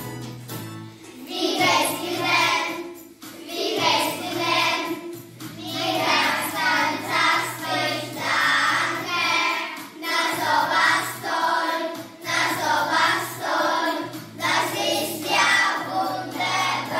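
A class of young children singing a German song together over an instrumental backing track. The voices come in about a second in and go on in short phrases with brief breaths between them.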